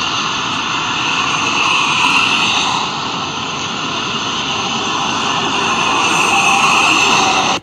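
Steady whine of a hovering multirotor drone's propellers over a steady rushing noise, ending abruptly.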